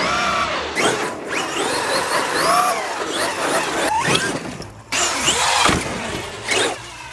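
Traxxas X-Maxx RC monster truck's brushless electric motor whining up and down in pitch as the throttle is worked, with sudden breaks where short clips are cut together.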